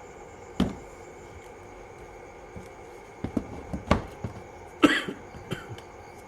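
A few sharp clicks and knocks over a steady background hum, with one louder, longer noisy burst about five seconds in.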